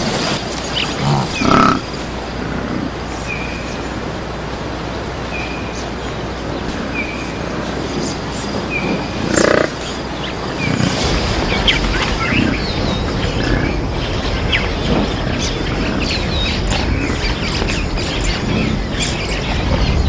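Savanna wildlife ambience: a bird repeats a short high chirp every second or two, other birds chirp later, and two louder animal calls stand out about a second and a half in and again about nine and a half seconds in.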